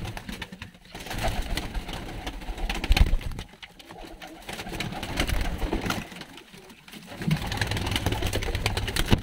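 White feather-footed fighting pigeons cooing, in three drawn-out bouts with brief lulls between, and a sharp knock about three seconds in.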